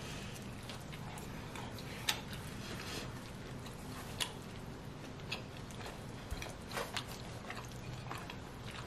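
Chewing a mouthful of pepperoni pizza, with a few short, sharp mouth clicks and smacks scattered through it over a steady low hum.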